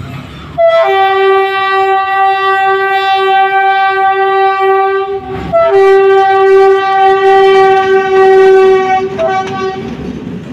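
Air horn of PNR diesel locomotive 918 sounding two long blasts, the first starting about half a second in and the second following after a brief break near the middle, each lasting about four and a half seconds.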